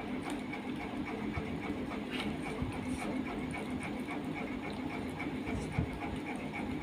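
A steady droning hum with a faint, fast, even pulse, like a running household fan or cooler motor, with a few soft clicks of food being torn and handled by hand.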